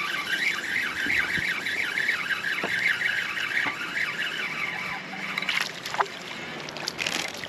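A steady, wavering high insect drone that fades about five seconds in, with a few sharp knocks near the end.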